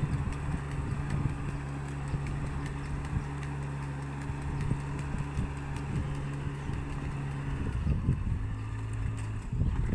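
Ride-on rice transplanter's small engine running with a steady hum under irregular knocks as it plants seedlings along the edge of the paddy. About eight seconds in, the hum drops to a lower pitch.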